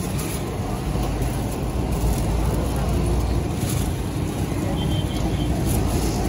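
Steady low rumble of street noise with a few faint clicks of handling over it.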